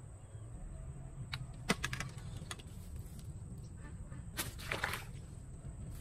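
Fishing tackle being handled at the pond's edge: a few quick light clicks about a second and a half in, then a short rustling burst near five seconds in, over a steady low rumble.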